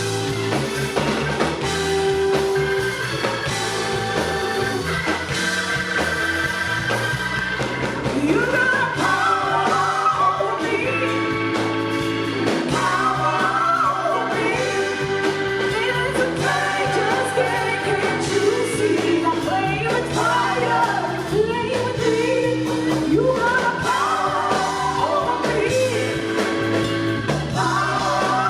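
Live blues-rock band playing, with drums, bass and electric guitar, and a bending lead line over the band from about a third of the way in.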